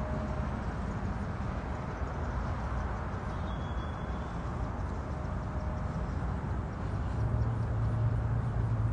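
Steady low rumbling outdoor background noise, with a low hum coming in near the end.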